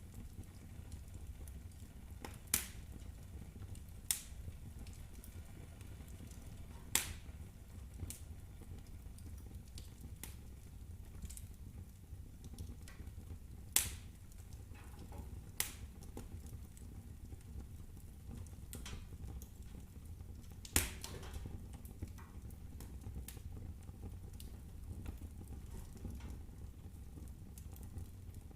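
Firewood burning in a fireplace: a steady low rumble of the flames with a sharp crackle or pop every few seconds.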